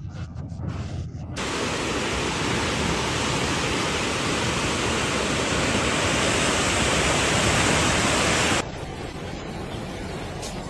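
A steady rushing noise with no pitch, starting abruptly about a second and a half in and cutting to a quieter hiss about eight and a half seconds in.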